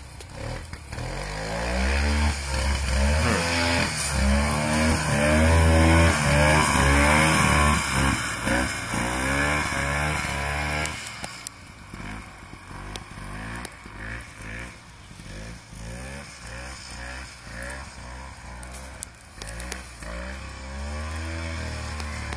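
Ski-Doo 250 snowmobile's two-stroke engine revving up and down at high revs. About halfway through it drops to a lower, uneven idle with a few short blips of throttle, then settles to a steadier idle near the end.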